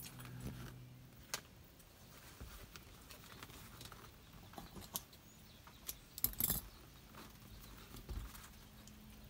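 Faint handling sounds as black electrical tape is pulled off its roll and wound around a foam-wrapped GPS transmitter: scattered light clicks and rustles, the loudest cluster about six seconds in.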